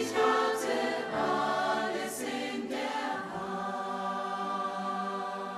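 Choir singing closing music; about halfway through the voices settle on one long held chord that starts to fade near the end.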